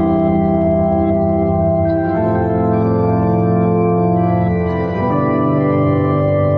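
Background music of slow, held keyboard chords that change about every three seconds.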